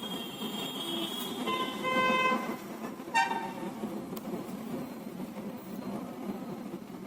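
Vehicle horns sounding over a steady background rumble: one longer honk about two seconds in, the loudest sound, and a short toot about a second later.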